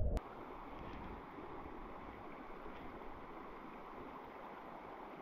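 Small creek running over a shallow riffle: a steady, even rush of water. It follows a muffled underwater sound that cuts off abruptly right at the start.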